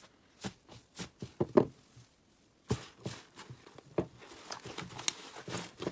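Slime being handled, giving irregular sticky clicks and small pops with short quiet gaps between them.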